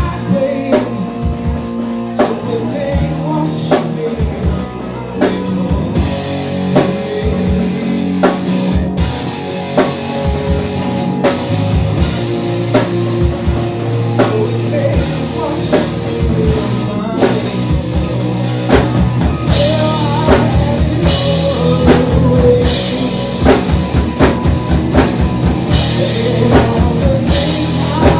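Live rock band playing: drum kit and electric guitar with some singing, the cymbals crashing harder in the last third.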